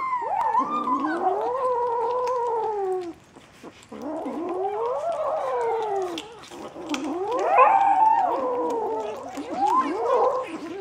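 Bengal kittens yowling over raw meat while they eat. There are long, drawn-out calls that rise and fall in pitch, several overlapping, with a brief pause about three seconds in and shorter calls near the end.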